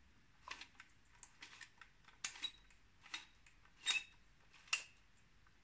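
Winding knob of a Meopta Flexaret VI twin-lens reflex camera being turned by hand, its mechanism giving faint, irregular clicks and small metallic rattles as the finished roll of film is wound onto the top spool.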